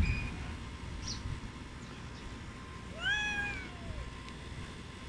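A cat meows once, about three seconds in: a single call under a second long that rises and then falls in pitch. A low thump comes right at the start.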